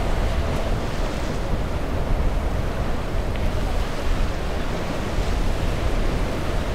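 Surf washing over the jetty rocks and around a grounded catamaran's hulls, with wind rumbling steadily on the microphone.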